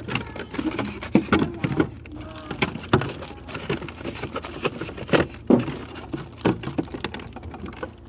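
Irregular plastic clicks and knocks as a replacement part is pushed and snapped by hand into a Whirlpool refrigerator's air diffuser housing.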